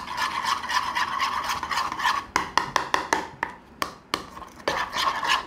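A metal spoon stirring and scraping a thick cream-and-curd marinade around a bowl, with a quick run of sharp clinks of the spoon against the bowl about halfway through.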